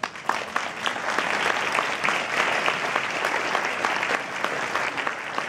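Audience applauding, a dense spatter of many hands clapping that swells in at the start and holds steady.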